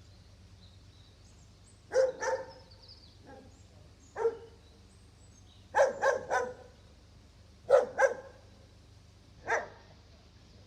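A dog barking in short bursts, about nine barks in irregular groups of one to three, over a faint steady low hum.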